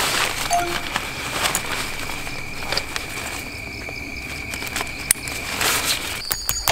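Nylon tent fabric rustling and crinkling in several short bursts as a car-side tent's bottom strap is threaded around a car tyre and fastened. A steady high thin tone runs underneath and stops shortly before the end.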